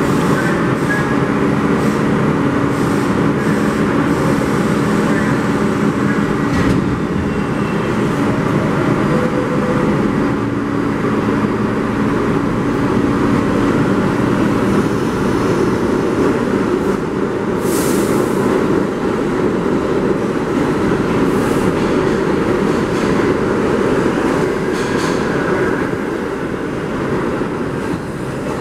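R32 subway train pulling out of an underground station from a stop and running past on the platform track: a continuous loud rumble of wheels and motors, with steady motor tones early on and scattered clicks of wheels over rail joints. A brief high hiss comes about two-thirds through, and the sound eases slightly as the last car leaves.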